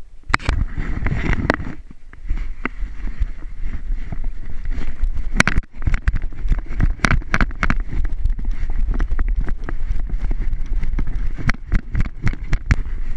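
Wind buffeting and rubbing on a jostled action camera's microphone as it moves fast over rough ground, with frequent knocks and thumps.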